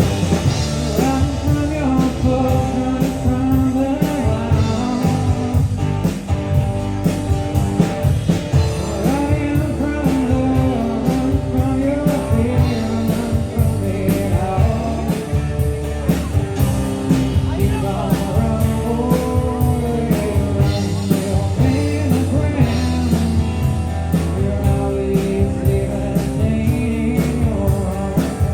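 Rock music with singing, guitar and a steady drum beat.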